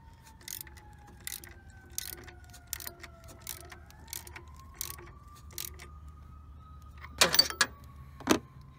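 Ratchet wrench tightening the idler pulley bolt on a serpentine belt drive, clicking in short strokes about every three quarters of a second. Near the end comes a louder metallic clatter and a single sharp knock.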